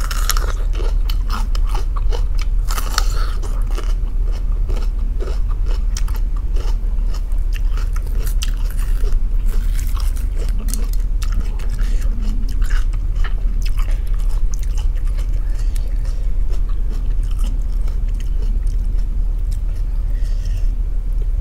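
Crunching bites and chewing of a raw red bell pepper, close to the microphone: a dense run of crisp crackles throughout, over a steady low hum.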